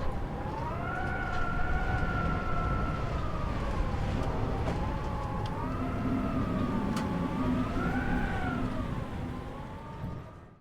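Howling wind: several whistling tones slowly rising and falling in pitch together over a low, gusty rumble, fading out at the very end.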